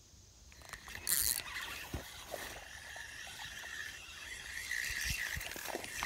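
Fishing reel being cranked in, a steady, slightly wavering whirr that starts about half a second in, with a short loud hiss about a second in.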